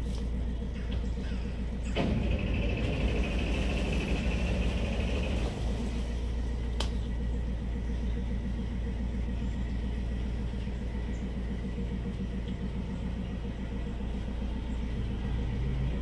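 A narrowboat's diesel engine running steadily with an even chugging rhythm. About two seconds in there is a knock, followed by a few seconds of hiss, and a sharp click near seven seconds.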